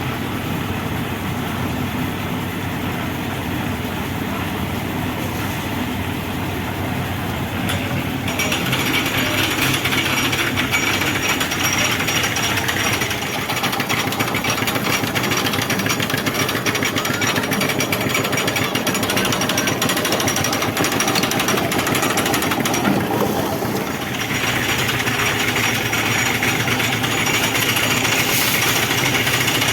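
Concrete mixer machine running with a continuous hard, rattling clatter. It grows louder about a quarter of the way in, eases briefly about three quarters of the way through, then picks up again.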